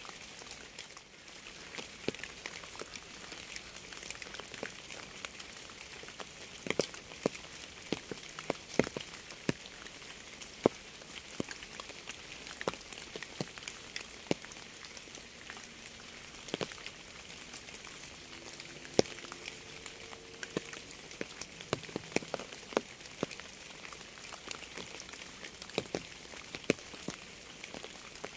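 Steady rain hiss with many close raindrops hitting a surface as irregular sharp drips and taps.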